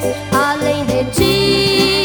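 Brazilian Pentecostal gospel music played from a vinyl LP: a mid-tempo band passage of held notes over a bass line, with a rising slide about half a second in.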